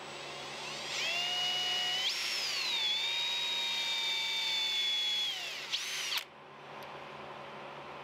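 Electric drill boring into the end of a knife handle: the motor whine starts about a second in, climbs in pitch, dips as the bit bites, holds steady, then winds down and cuts off after a short blip about six seconds in.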